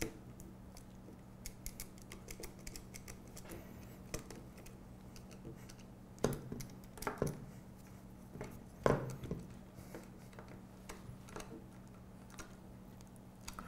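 Hex screwdriver tightening screws into aluminium channel brackets: scattered light metal clicks and ticks, with a few louder clicks around the middle, over a faint steady hum.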